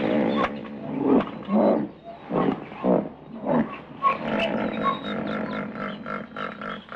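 An adult elephant and its calf calling: a run of short, loud grunting calls, about one or two a second.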